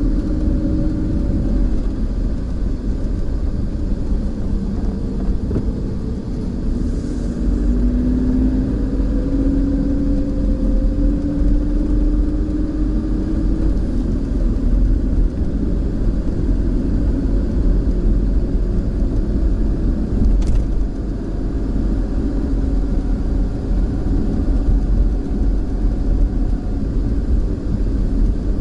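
Car driving slowly, heard from inside the cabin: a steady low rumble of engine and tyres, with the engine note rising gradually for several seconds near the middle as the car gathers speed. A brief faint click about twenty seconds in.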